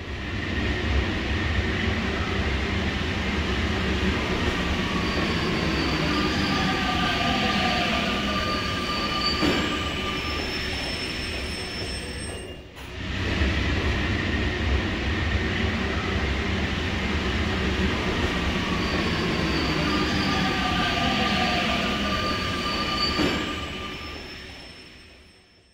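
Metro train running, with a steady rumble and high squealing tones from the wheels and a falling whine. The sound dips briefly about halfway and the same passage comes round again, then fades out.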